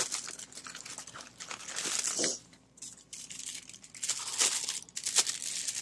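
Clear plastic packaging crinkling unevenly as a new air filter and prefilter are handled and taken out of the bag, with a louder stretch about two seconds in.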